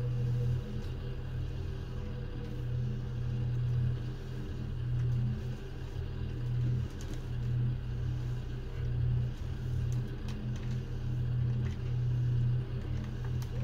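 Seibu 2000 series electric train running at speed, heard inside a motor car: a steady low rumble of the wheels and running gear on the track, swelling and dipping in loudness.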